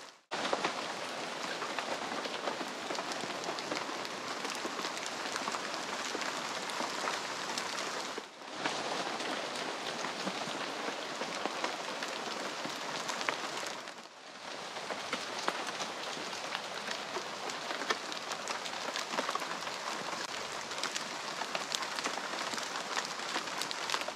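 Steady rain pattering on forest leaves, a dense hiss of fine drop ticks, broken by two brief dips about eight and fourteen seconds in.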